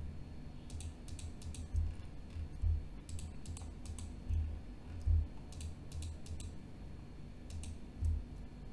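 Computer mouse and keyboard clicks in about four small bunches of quick clicks, with soft low thumps between them, as images are selected one after another.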